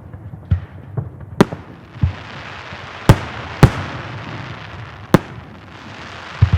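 Fireworks display: sharp bangs of aerial shells bursting, several in quick succession, the two loudest about half a second apart in the middle. A steady crackling hiss of crackle-effect stars runs under them from about two and a half seconds in.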